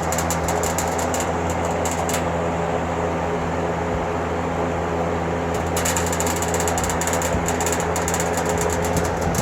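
Vintage GE three-speed box fan with a plastic blade running steadily on high: a motor hum with rushing air. Over it runs a clicking rattle that comes and goes, busier in the second half, typical of the front grille whose rubber mounts have deteriorated.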